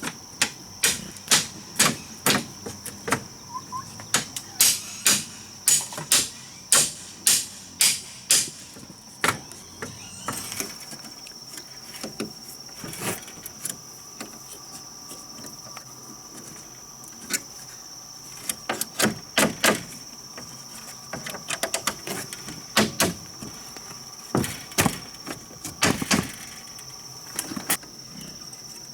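A run of sharp knocks, about two a second, for the first eight seconds or so, then scattered knocks and a second quick run later, over a steady high-pitched insect drone.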